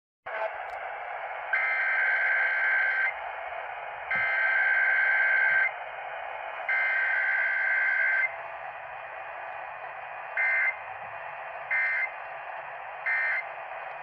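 Emergency Alert System data tones from KDKA radio, heard through a RadioShack emergency radio's speaker over a steady hiss of radio static. There are three long warbling bursts, the SAME header of a Required Weekly Test, each about a second and a half long. Then come three short end-of-message bursts about a second apart.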